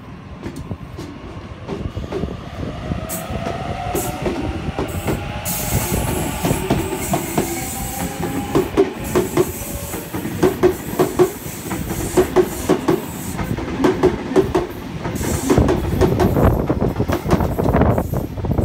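Electric double-deck suburban train pulling away, its traction motors whining and rising in pitch over the first several seconds. Then its wheels clack over the rail joints in a steady rhythm, growing louder near the end.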